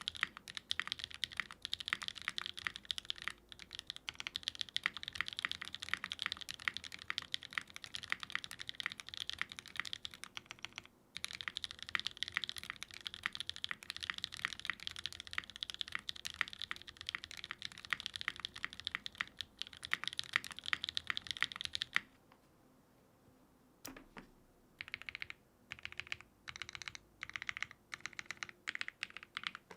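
Mechanical keyboard being typed on fast and continuously: a Geonworks F1-8X with lubed Gateron Cream Soda linear switches and lubed stock springs on a gasket-strip-mounted aluminum plate, fitted with GMK keycaps. The typing breaks off briefly near the middle and stops for about two seconds later on. It then comes back in short bursts of keystrokes.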